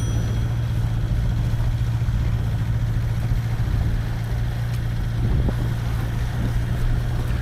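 Outboard motor on an inflatable boat running steadily under way, a constant low drone.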